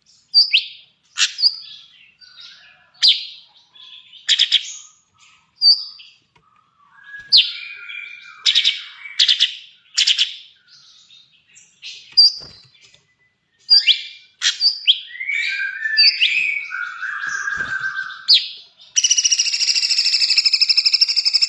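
A songbird singing in loud, varied phrases of sharp whistled and chattering notes, then breaking into a long, rapid trill about 19 seconds in.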